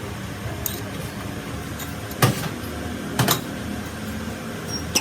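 Metal lathe running with a steady hum, with two sharp knocks about a second apart near the middle and a few faint clicks.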